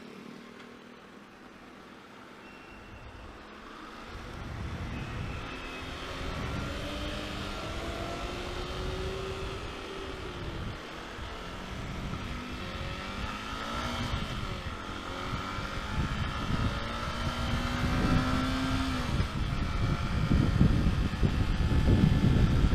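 Motorcycle engine running and revving, its pitch rising and falling through several gears as it pulls away, getting louder with wind buffeting on the microphone over the last few seconds.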